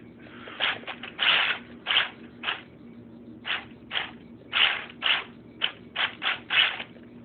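Brushed electric motor and belt-driven drivetrain of an RC car whirring in about a dozen short, irregular bursts as the throttle is blipped, running weakly on low batteries.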